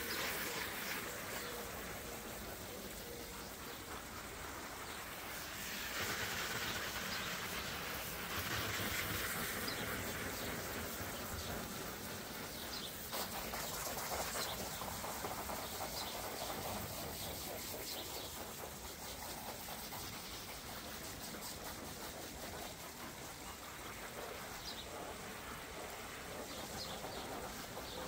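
Garden hose spraying water onto an inflatable hot tub lid and wet paving, a steady splashing hiss that swells and fades as the jet moves. Birds chirp faintly behind it.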